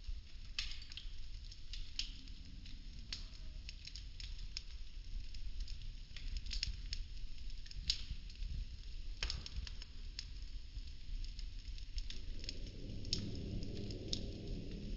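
Wooden popsicle sticks of a model house burning: irregular sharp crackles and pops over a low rumble of flame. The rush of the fire grows fuller about twelve seconds in.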